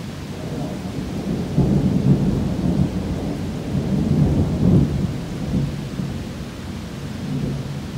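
Thunder rumbling over steady rain: a low rolling rumble swells about a second and a half in, peaks twice, and dies away near the end.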